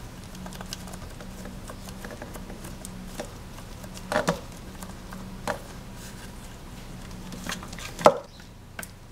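Fingers pressing and working Play-Doh into a plastic toy mold: soft patting and squishing handling noise with a few sharper taps of the plastic, the loudest near the end, over a faint steady low hum.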